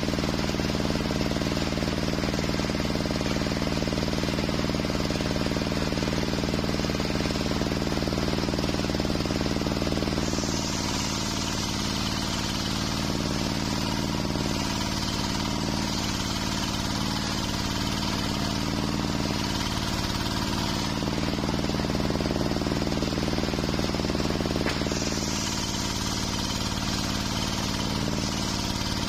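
Homemade circular sawmill running steadily, its large blade ripping through a waru (sea hibiscus) log for the first ten seconds or so. The blade then spins freely with a brighter, higher sound while the timber is repositioned, and the tone shifts again a couple of times as the blade goes back into and out of the wood.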